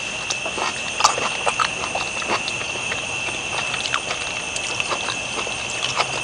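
Close-miked chewing: irregular wet clicks and smacks of a mouth eating a forkful of cooked squash, several a second. A steady high-pitched whine runs underneath.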